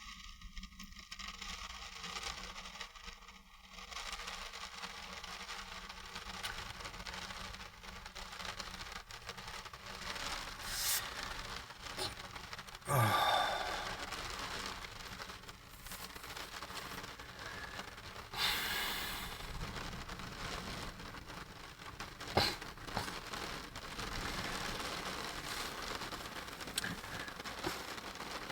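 Rustling and scraping handling noises with a few sharp clicks over a steady background hiss.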